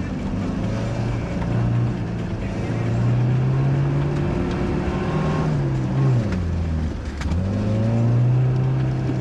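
Suzuki off-roader's engine pulling under load on a trail; about six seconds in the revs fall away sharply, then climb again.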